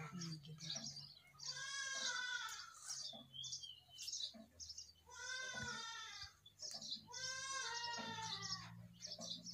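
An animal calling three times, each a drawn-out, wavering cry about a second long, at roughly two, five and seven and a half seconds in.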